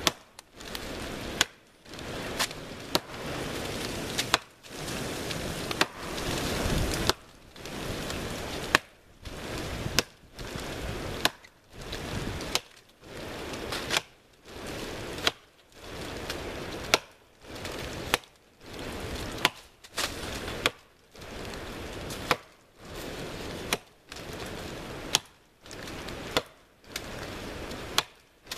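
Hultafors axe on a handmade oak handle chopping into the trunk of a standing dead tree, a sharp chop about every second and a half, with a rustling hiss between strikes.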